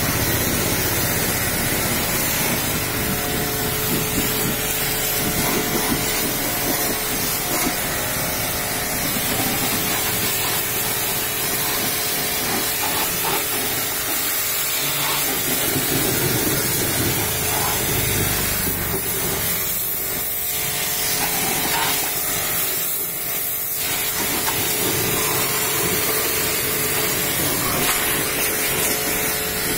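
High-pressure washer jet spraying water against a vehicle's body panels and tyre: a steady hiss with a faint steady hum underneath. The hiss eases briefly twice, a little past the middle.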